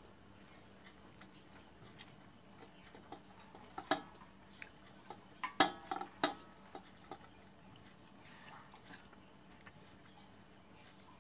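Eating with the hand at a metal plate: fingers mixing and scraping rice on the plate, with scattered soft clicks and a few louder metallic taps, clustered about four and six seconds in, some briefly ringing.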